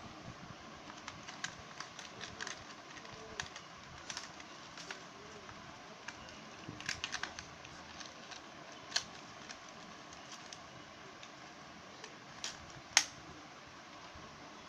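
Scattered light clicks and taps of fingers handling the plastic underside of a toy RC car, with a quick run of clicks about seven seconds in and one sharp click near the end, over a steady faint hiss.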